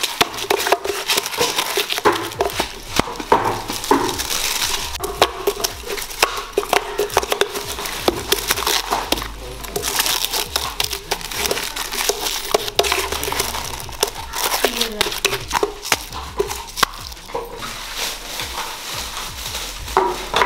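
Clear plastic wrapping film crinkling and rustling in dense, irregular crackles as it is folded by hand around a bundle of three cracker tubes.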